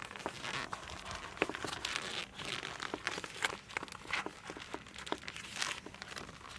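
Crinkling and rustling of a sheet of foam sound-insulation material and its backing being handled and pressed into place by hand, with scattered small clicks.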